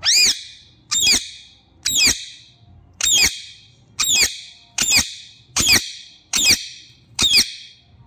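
Indian ringneck parakeet screeching nine times in a steady series, about one call a second, each call rising then falling in pitch. The owner takes the calling for the bird being upset.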